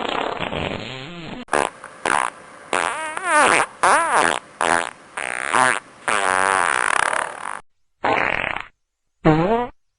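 A run of fart sounds played one after another: a longer one at the start, then about nine short separate ones, each under a second or so, many with a wobbling, sputtering pitch, the last two coming after brief silences.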